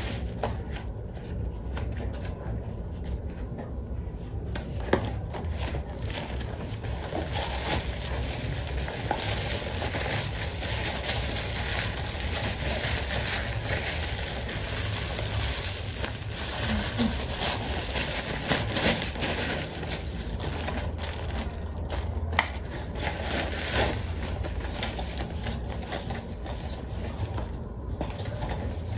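Plastic packaging and bubble wrap crinkling and rustling as small round under-cabinet lights are unwrapped by hand, with scattered sharper crackles and clicks throughout.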